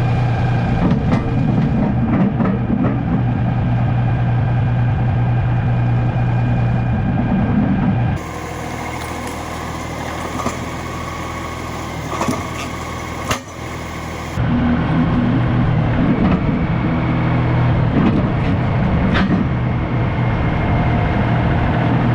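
An engine running steadily at idle. About 8 seconds in it cuts to a quieter, hissier machinery stretch with a few sharp clicks, and about 14 seconds in it returns to the steady engine.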